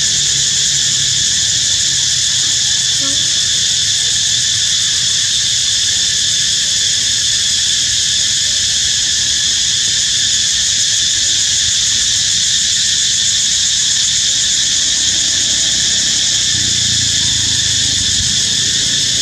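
Loud, steady insect chorus: a shrill, unbroken drone that does not change.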